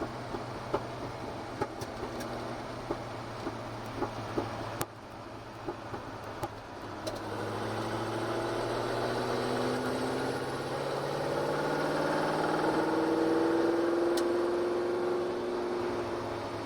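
GT40's V8 engine heard from on board, running at a low steady speed with scattered sharp clicks, then pulling harder from about seven seconds in, its pitch climbing gradually.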